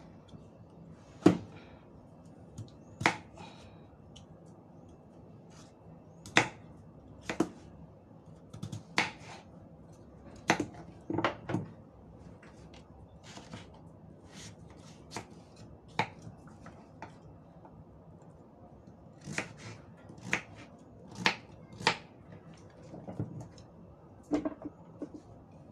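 Kitchen knife cutting through raw pumpkin and knocking down onto a wooden cutting board: irregular sharp knocks, some in quick pairs, with short gaps between.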